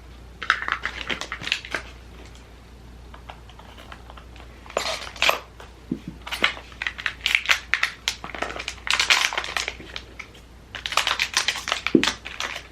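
Small cardboard advent-calendar drawers and pin packaging being handled and prised open with tweezers: spells of rustling, scraping and quick light clicks, with short pauses between.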